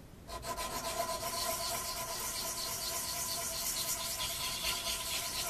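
Sanding block rubbed back and forth with quick strokes across the muzzle face of a steel muzzleloader rifle barrel, a steady rasp of abrasive on metal starting just after the beginning. The sanding takes off the metal thrown up around the center-punch marks on the muzzle.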